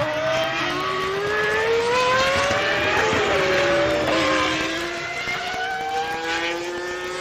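Jaguar Formula 1 car's Cosworth V10 at high revs, climbing through the gears. About three seconds in the revs drop sharply and sink for a second as it brakes and shifts down for a corner, then rise again in steps as it accelerates out.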